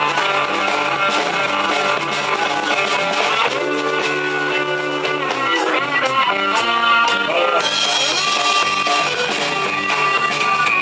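Rock music, an instrumental passage led by guitar with sustained notes over a steady backing.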